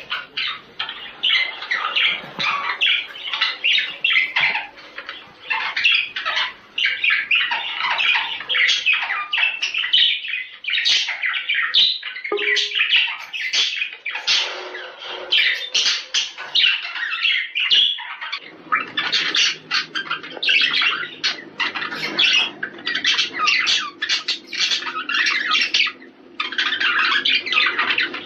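Male budgerigar warbling: a fast, unbroken chatter of squawks, chirps and clicks, the courtship song used to stir budgies into breeding.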